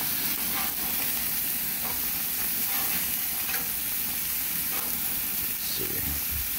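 Beef burger patties sizzling on a hot grill grate over open flames: a steady frying hiss with a few faint ticks.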